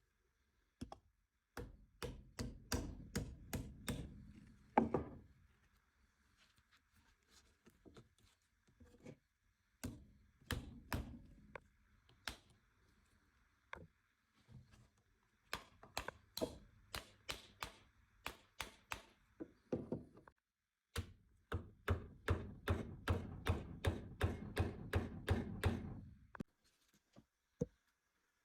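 Hammering during work on the handle: quick runs of sharp taps, about three to four a second, coming in several bursts with short pauses between them.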